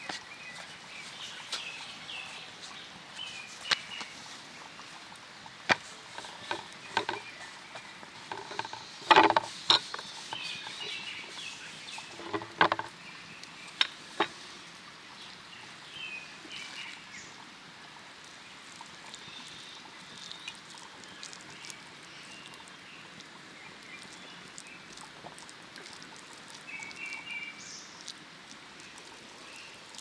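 Birds chirping over a steady rush of running water. Several sharp knocks and thuds come in the middle, the loudest about nine and twelve seconds in, from dough being handled and rolled on a wooden board.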